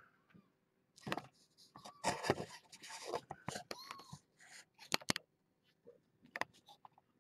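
A kitten nosing and rubbing its face against a webcam close to its microphone: scratchy rubbing and snuffling noises in irregular bursts, with a few sharp clicks about five and six seconds in.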